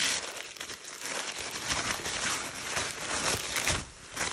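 Pink tissue paper crinkling and rustling as hands tear it open at its sticker seal and fold it back, in uneven rustles throughout.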